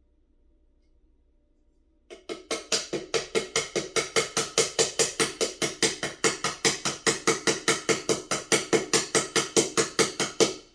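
Rapid, very even percussive knocking, about five strikes a second, each with a short ringing tone; it starts suddenly about two seconds in and stops suddenly near the end.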